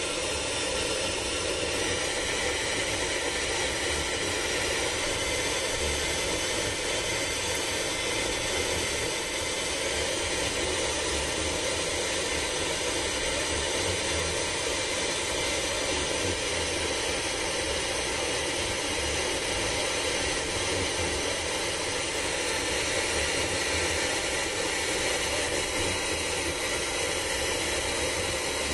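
Steady, even hiss inside a car, with no tone or rhythm, and a little brighter from about two seconds in.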